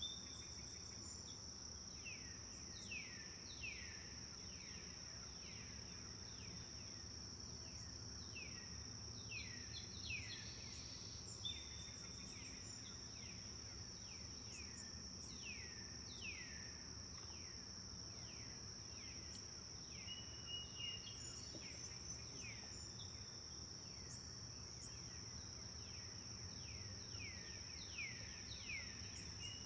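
Forest ambience: birds calling with many short notes that sweep downward in pitch, coming in clusters, over a steady high-pitched insect drone.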